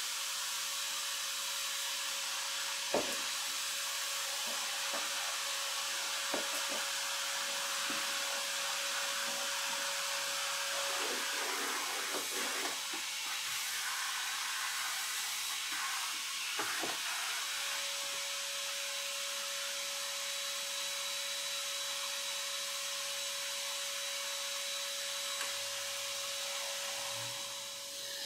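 Homemade bucket shop vacuum running steadily: an airy rushing hiss with a steady whine, sucking up sawdust through its hose and nozzle. A few sharp knocks from the hose and nozzle being handled, about three seconds in and again later.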